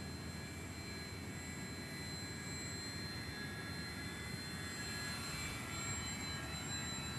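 Motor and propeller of a park-scale RC model airplane whining in flight, growing a little louder and sliding in pitch about five seconds in as it passes closer, over low wind rumble on the microphone.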